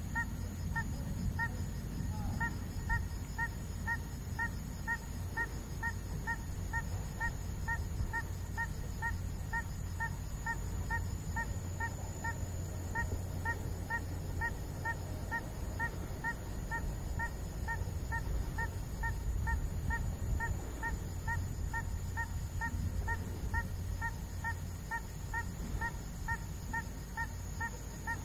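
A short, honking call repeated evenly about two to three times a second without a break, typical of a frog or night bird calling, over a steady low rumble.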